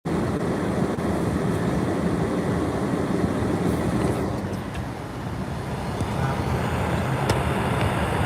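Steady low rumble of vehicle and road noise, as from a car in motion.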